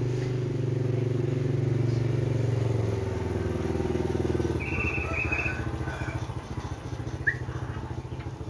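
A motor vehicle engine runs steadily, loud for the first four and a half seconds and then fading. A short high warbling call and a brief rising chirp come over it in the second half.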